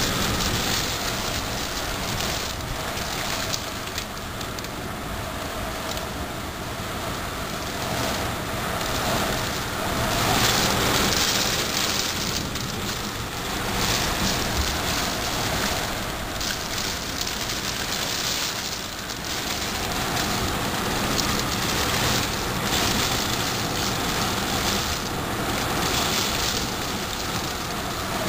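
A heavy hailstorm: a dense, steady clatter of hailstones falling with gusting wind, growing louder and softer in waves.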